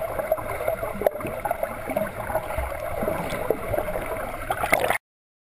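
Muffled bubbling and splashing of a swimmer's front-crawl strokes, picked up underwater, full of small irregular clicks; it cuts off suddenly near the end.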